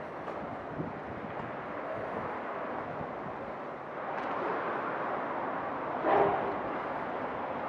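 Steady outdoor background noise that grows a little louder about four seconds in, with a brief louder sound about six seconds in.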